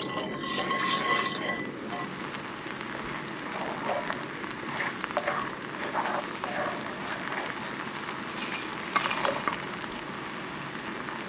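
Thick chili sauce bubbling and sizzling in a cast-iron skillet while a wooden spoon stirs it, with small pops and a few sharper clicks against the pan.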